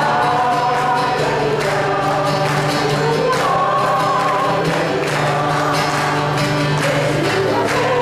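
A group singing a Christian praise song together, accompanied by strummed acoustic guitar, with a steady beat and no break in the singing.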